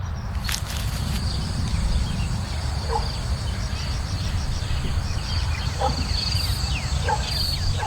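Night insects chirping in a steady, pulsing high trill over a low rumble, with a few short faint squeaks.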